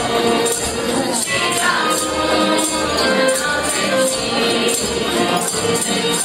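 Mixed folk choir singing a Romanian Christmas carol (colindă), with bells or jingles shaken on the beat about twice a second.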